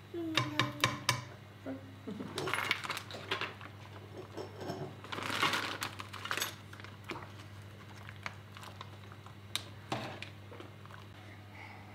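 Frozen dumplings being tipped from a plastic bag into a metal ladle and pot: a few sharp clinks near the start, then stretches of bag rustling and dumplings clattering, with a steady low hum underneath.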